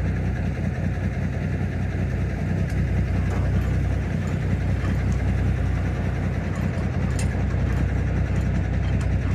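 Heavy diesel engine idling steadily with a low, even rumble, most likely the semi tractor that hauled the lowboy trailer, left running. There are a few faint ticks.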